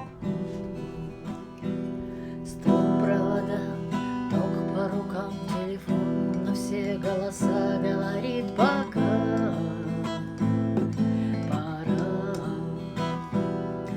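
Instrumental introduction of a song: acoustic guitar strumming chords, with a melody line that bends in pitch over the chords.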